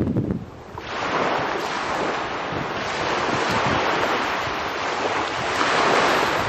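Small sea waves breaking and washing up a pebble shore in a steady rushing wash. It dips briefly about half a second in, then builds again and is loudest near the end.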